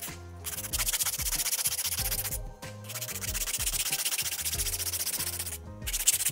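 A 100-grit hand nail file rasping back and forth across a sculpted acrylic stiletto nail in fast strokes, shaping the underside straight. The strokes come in runs broken by three brief pauses.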